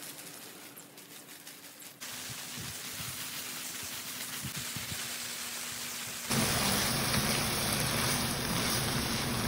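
Water spraying from a garden hose onto plants, then from about six seconds in a louder, steady sizzling of octopus and shrimp stir-fry in a wok, with a faint low hum underneath.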